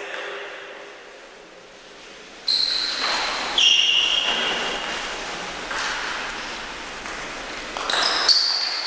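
Celluloid-type table tennis ball clicking off bats and table as a doubles rally gets going near the end, ringing in a large sports hall. Earlier come a couple of short high squeaks, typical of trainers on the hall floor.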